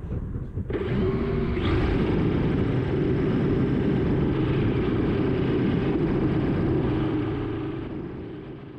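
Quadcopter's 2300KV brushless motors and propellers, on a 3S battery, spinning up about a second in and running at throttle as a steady whine, with a rising whine just under two seconds in and wind rumbling on the microphone. The sound fades near the end.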